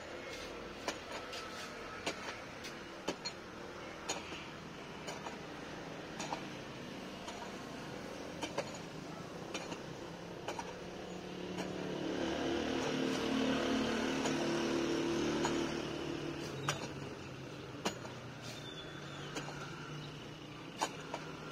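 Hand digging tool striking hard, dry soil in sharp, irregular blows about once a second while a foundation trench is dug out. Midway through, a passing motor vehicle's engine swells and fades.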